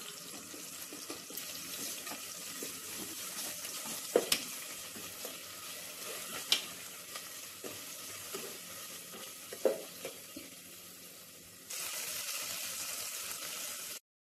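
Oil sizzling in a steel pot as ginger-garlic paste and chopped green chillies fry, with a steel ladle stirring and a few sharp clinks of the ladle against the pot. The sizzle grows louder near the end, then cuts off.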